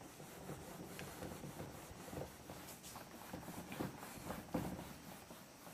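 Faint rubbing of a whiteboard being wiped clean by hand, in irregular strokes, a few of them louder in the second half.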